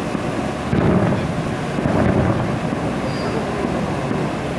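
Distant aerial fireworks booming and rumbling, with two swells about one and two seconds in, over steady wind noise on the microphone.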